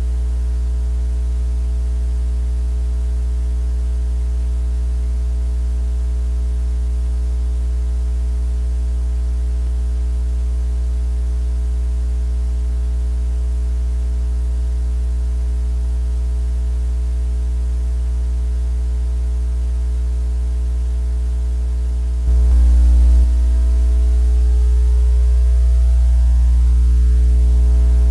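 Steady low electrical hum with a buzzy stack of overtones. About 22 seconds in it grows louder, and tones sweeping up and down in pitch join it.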